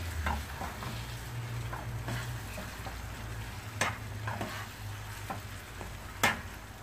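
Slotted metal spoon stirring thick semolina and sugar in a steel pan on a lit gas burner, with soft scraping and small ticks. The spoon strikes the pan sharply twice, about halfway through and near the end; the second strike is the louder.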